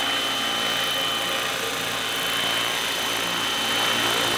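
Radio-controlled scale Robinson R22 helicopter hovering, its rotor and motor running steadily with a high-pitched whine over the rotor noise.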